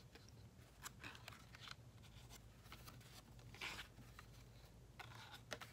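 Faint rustling of embossed foil paper sheets handled and flipped through, in a few short scuffs with one slightly louder rustle a little past halfway.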